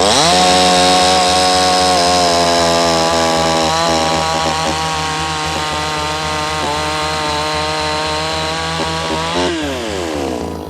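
Garland Indiana 8 two-stroke petrol chainsaw revving up, running at high revs with slight dips as it cuts wood, then dropping back toward idle near the end.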